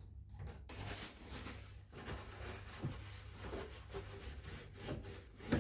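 Faint, irregular rubbing and scraping of hands working on a Samsung washing machine's plastic drain pump filter and its housing, cleaning out debris, over a low steady hum.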